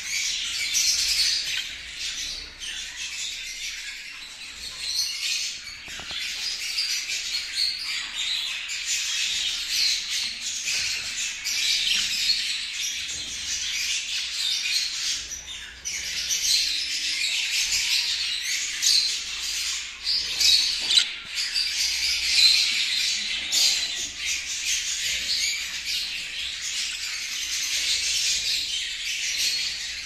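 Budgerigars chattering and warbling without a break, a dense run of quick high chirps and squawks.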